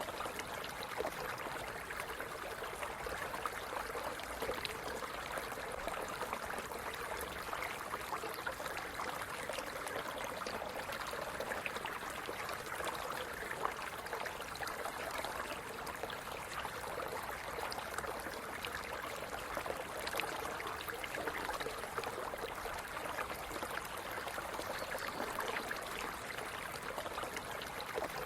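A small stream running over stones: a steady babble with trickling and bubbling, even throughout.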